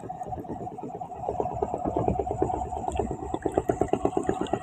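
Small engine running with a rapid, even putter of about eight beats a second, growing louder over the few seconds.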